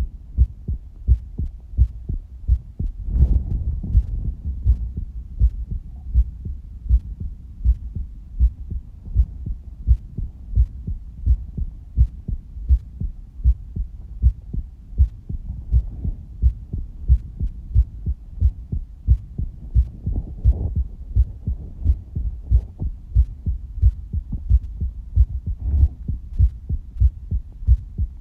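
Human heartbeat: a steady rhythm of low, dull beats, a little over one a second.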